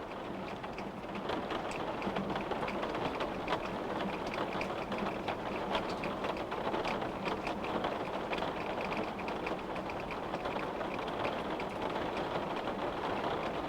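Steady rain falling, with many individual drops ticking against a window pane over the patter.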